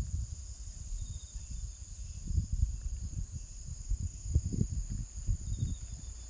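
Insects, likely crickets, trill steadily in a high, even chorus, with irregular low thumps and rumbles underneath from footsteps or wind on the microphone.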